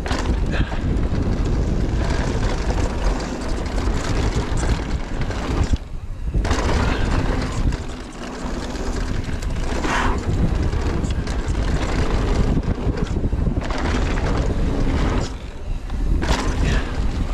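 Wind buffeting the microphone of a rider-mounted camera and mountain-bike tyres rolling fast over a dirt trail during a downhill descent. The rush drops away briefly twice, about six and fifteen seconds in.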